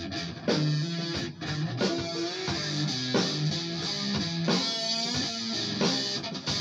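Amplified electric guitar playing, repeating a short phrase of chords every second or so.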